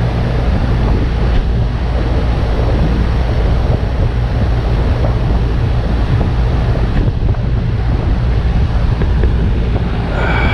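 Outdoor AC condensing unit running: a steady fan rush with a low electrical hum, as the locked-up compressor keeps trying to start.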